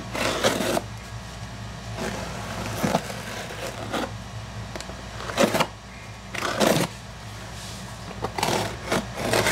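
Cardboard shipping box being cut open with a knife and its flaps pulled open: about half a dozen short scraping rips, over a steady low hum.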